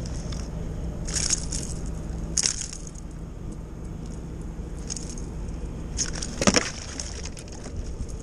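Steady low rumble of wind and moving water on the microphone, broken by a few short crackling rustles and one sharp knock about six and a half seconds in.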